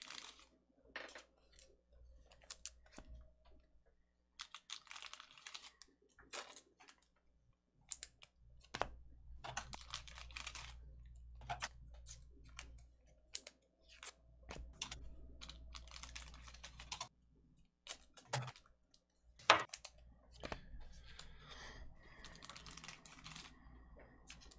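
Quiet, irregular clicks and taps with short stretches of soft rustling, and one sharper click about twenty seconds in.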